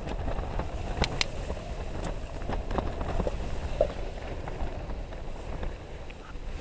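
Strong wind buffeting the tent and the microphone, a steady low rumble. A couple of sharp metallic clinks about a second in as the cooking pot and spoon are handled.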